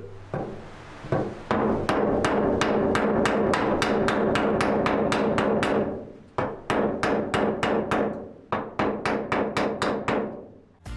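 Small hammer striking a wooden-handled chisel to chop into a timber beam, a fast, even run of taps at about three or four a second. The taps pause briefly about six seconds in and then carry on.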